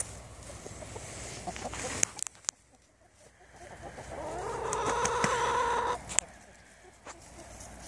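A rooster crows once: a long call that starts about three and a half seconds in, rises, holds steady and cuts off sharply. Hens cluck quietly around it, and a couple of sharp knocks stand out, one before the crow and one just after it.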